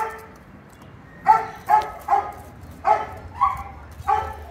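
A dog barking in short, sharp barks, about seven of them spaced unevenly.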